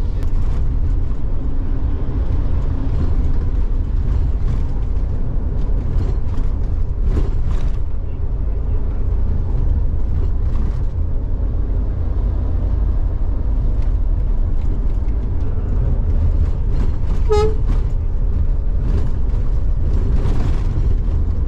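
Steady low drone of a Scania K410 double-decker bus cruising on the road, engine and road noise as heard inside the upper-deck cabin. About two-thirds of the way through, a single short horn toot.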